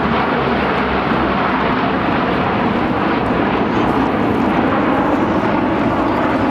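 Low pass of C-130H Hercules transports in formation, their four-engine turboprops making loud, steady engine noise.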